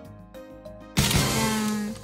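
Light background music, then about a second in a loud edited sound-effect sting: a noisy burst with a held low note that stops abruptly after about a second.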